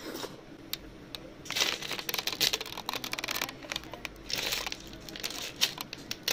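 River snail shells clicking and rattling against one another as a hand rummages through a heaped pile of them, in several bursts of rapid clicks.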